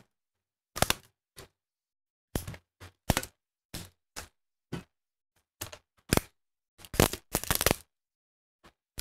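Irregular sharp clicks and cracks of a plastic laptop being pried apart by hand, its clips snapping loose, with a denser run of crackling about seven seconds in.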